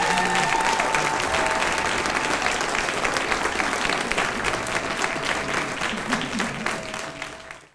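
Audience clapping, with a few cheers heard over the applause. The applause fades out near the end.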